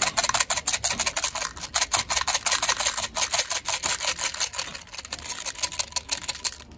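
Small candies pouring out of a plastic bottle and clattering into a plastic toy pot: a dense run of quick clicks that stops abruptly near the end.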